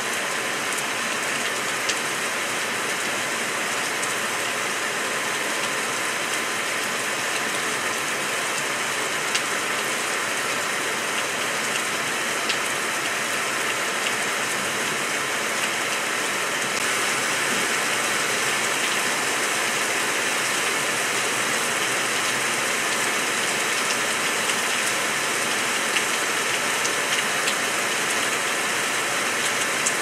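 A steady, even hiss with a few faint scattered clicks.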